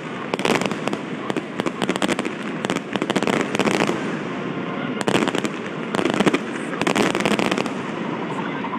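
Fireworks display going off in a rapid barrage: dense clusters of sharp bangs and crackles from bursting shells and rising comets, coming in waves with short lulls between them.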